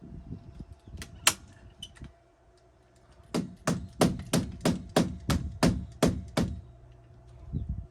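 Hammer striking: two knocks about a second in, then a steady run of about ten blows, roughly three a second.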